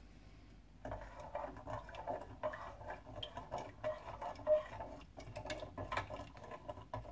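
Metal spoon stirring in a ceramic mug, clinking and scraping quickly against its sides as sugar is dissolved into warm milk. The stirring starts about a second in.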